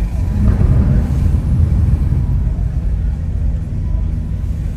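Lamborghini Urus Performante's twin-turbo V8 with Akrapovič exhaust giving a steady low rumble while driving, a little louder for about a second near the start.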